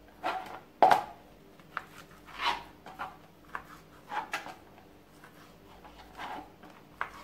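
Kitchen knife cutting beef shin on a plastic cutting board: irregular knocks and short scrapes as the blade goes through the meat and meets the board, the loudest about a second in.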